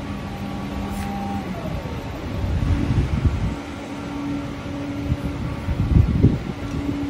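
Industrial printer and factory machinery running with a steady hum of several held tones, one sliding down in pitch about a second and a half in. Low rumbling swells come twice, around three and six seconds in.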